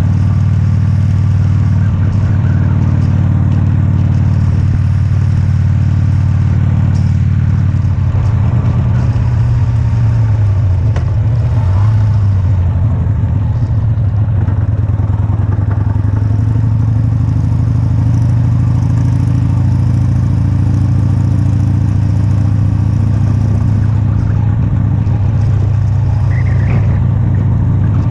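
Motorcycle engine running steadily while ridden along a street, with wind and road noise. The engine note dips and picks up again around the middle of the clip as the bike slows for a turn.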